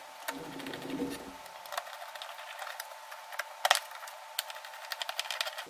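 Screwdriver driving the Phillips screws into a plastic car airbox lid: an irregular run of small clicks and ticks from the tool and the plastic, with one louder click about three and a half seconds in.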